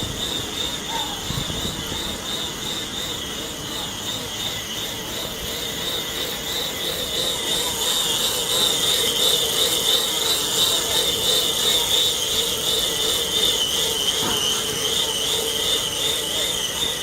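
Bicycle tyre spinning on homemade roller trainer with Tacx rollers, giving a steady high whine with a slight rhythmic waver. It grows louder about halfway through as the speed picks up.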